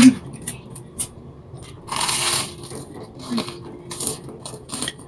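Toast being bitten and chewed close to the microphone: one loud crunchy bite about two seconds in, among scattered crisp chewing clicks.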